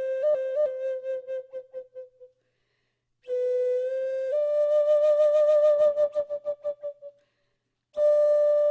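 Solo flute playing slow, long held notes, stepping up to a higher note about four seconds in. Each phrase ends in a quick pulsing flutter that fades out, followed by a moment of silence.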